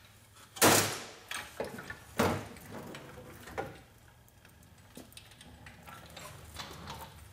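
Hydraulic floor jack being rolled out from under a car on a concrete floor with a heavy load: a loud metal clunk about half a second in, then a few lighter knocks and rattles that thin out after the first four seconds.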